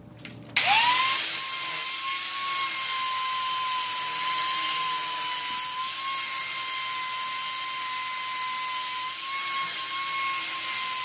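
Angle grinder spinning up about half a second in, then a steady whine with a grinding hiss as its abrasive disc grinds down the sharp corners of a welded steel angle-iron frame.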